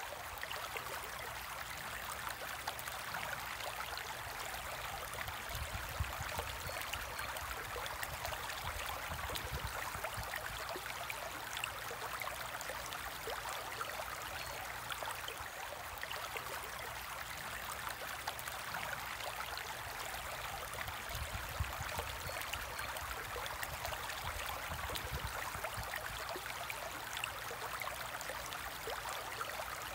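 Steady trickling and splashing of circulating water in a home fish tank, with a fine crackle throughout.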